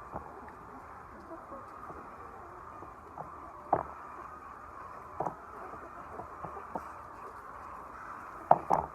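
A flock of laying hens making a steady murmur of clucking, broken by sharp, irregular taps and knocks, the loudest about four seconds in and twice near the end.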